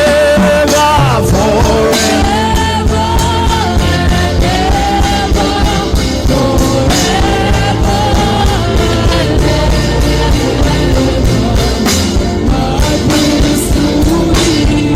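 Live worship music: sung vocal lines held and gliding over a band with drums keeping a steady beat.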